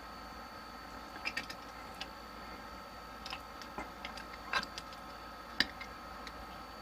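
Scattered light metallic clicks and taps, about half a dozen spread over several seconds, as a wrench is fitted to and tightens a plumbing fitting, over a steady faint hum.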